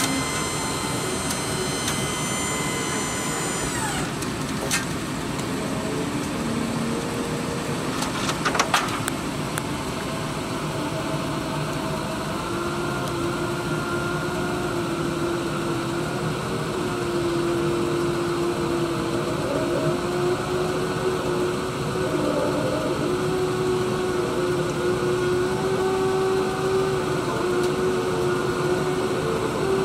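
Ford F350 Super Duty dump truck running steadily while its raised dump bed is lowered. A whining hydraulic pump motor dips in pitch and stops about four seconds in. Sharp metallic knocks come about five seconds in and again around eight and a half seconds in.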